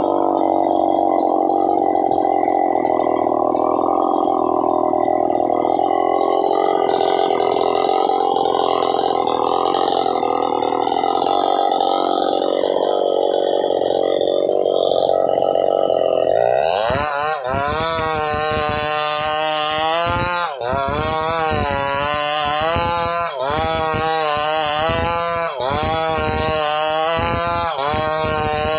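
A steady engine drone, then about two-thirds of the way through a chainsaw engine revs up and cuts. Its pitch sags and climbs again about every two and a half seconds as the bar is worked back and forth through the log.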